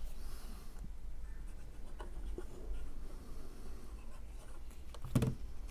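Faint rubbing and handling of cardstock paper pieces on a work surface, with a few light ticks and a soft knock about five seconds in.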